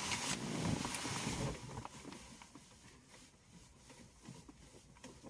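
Electrical wiring and connectors being handled and fed through: a scraping rustle for about the first second and a half, then scattered light clicks and taps.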